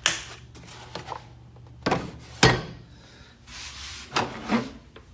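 Tools and their storage being handled: several sharp clunks, the loudest about two and a half seconds in, with some rubbing and shuffling between.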